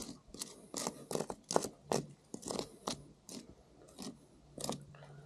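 A stone scratching a mark into tree bark in short, irregular strokes, about two or three a second.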